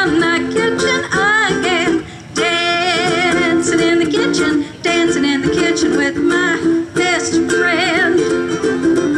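A woman singing with a wavering, vibrato-laden voice over a strummed ukulele, with brief breaks in the music about two seconds and about four and a half seconds in.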